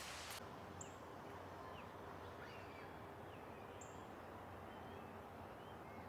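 Faint outdoor ambience with scattered small bird chirps and short calls, two of them sharper and higher, about a second in and near four seconds. A brief hiss at the very start cuts off suddenly.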